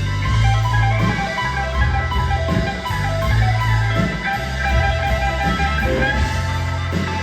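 Live rock band playing: electric guitar over a bass line that moves from note to note, with drums.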